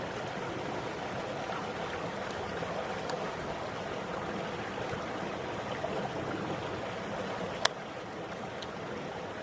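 Steady flowing water, an even rushing with no rhythm, with one sharp click about three-quarters of the way through.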